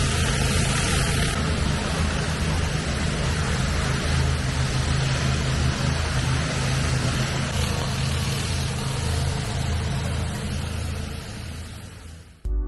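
Pressure washer running: a small engine droning steadily under the loud hiss of a hot-water, high-pressure spray on concrete. It fades out shortly before the end.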